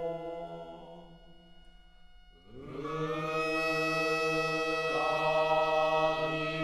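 Long held chanted notes in a mantra-like drone. One note fades away over the first couple of seconds, then a new one swells in with a short rise about two and a half seconds in and is held steady, shifting slightly near the five-second mark.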